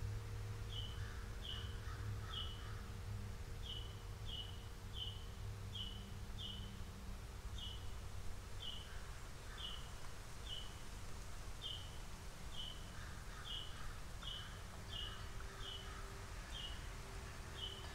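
A bird calling a short, high, down-slurred chirp over and over, roughly once a second, with softer chatter from other birds now and then. A low steady hum runs underneath.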